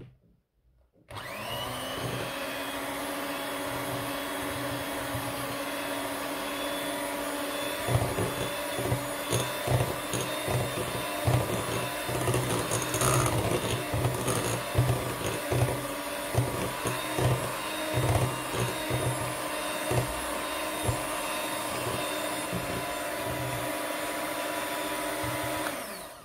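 Electric hand mixer running, its wire beaters whisking cake batter in a glass bowl. The motor starts about a second in with a steady whine, picks up uneven low knocks from about a third of the way through, and stops just before the end.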